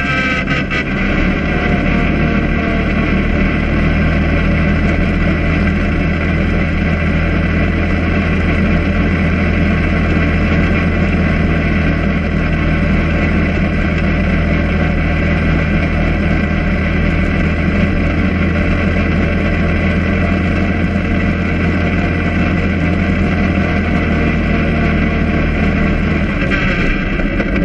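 Quad (ATV) engine running steadily under way on a gravel road, its low note holding even; the note shifts about a second before the end.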